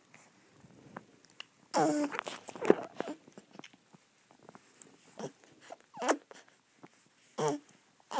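Baby sucking and smacking wetly on his fist, with small clicks throughout, and a couple of short pitched baby vocal sounds, one about two seconds in and a briefer one near the end.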